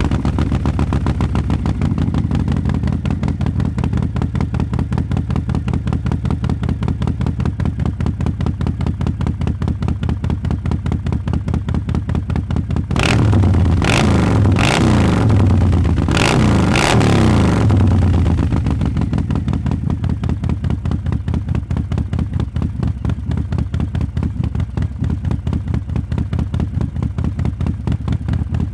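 2020 Harley-Davidson Fat Boy's V-twin engine idling with an even pulsing beat. About 13 seconds in the throttle is blipped several times in quick succession for some five seconds, then the engine settles back to idle.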